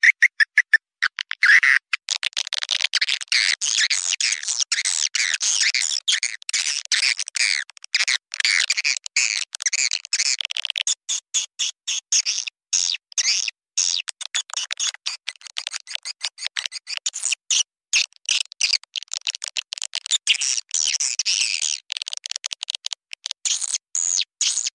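Swiftlet-calling lure recording of edible-nest swiftlets: a quick, even run of short chirps for the first two seconds, then a dense, unbroken twittering and clicking of many swiftlets together.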